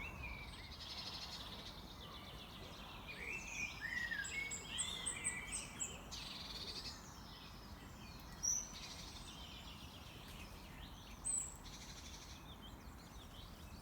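Small songbirds singing and calling, with quick chirping and sliding phrases that are busiest a few seconds in, then a couple of single sharp calls, over a faint steady outdoor background.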